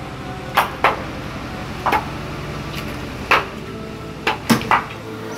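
Meat and bone being chopped with a heavy blade on a block: about seven sharp, irregularly spaced chops, with two or three in quick succession near the end, over a steady hum.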